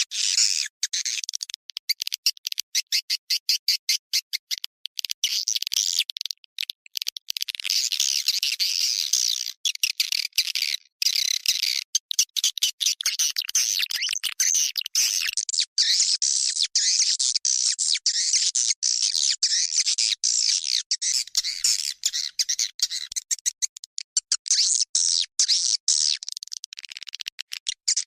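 Swiftlet lure-sound recording: dense, high-pitched chattering chirps of swiftlets, broken by many short gaps. About fifteen seconds in it changes to a second version with a duller top end.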